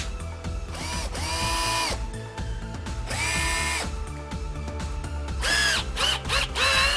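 KEAYANG DD-962 cordless driver drill's motor, running on a 12.6 V three-cell lithium-ion pack in place of its 9.6 V battery, spun up twice for about a second each with a rising whine, then given several quick short trigger pulls near the end, its pitch rising and falling with each. Background music plays underneath.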